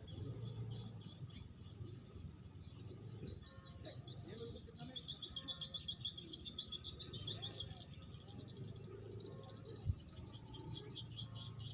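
Insects chirping in fast pulsing trills in the rice-field ditch, over a low rumble, with one sharp knock about ten seconds in.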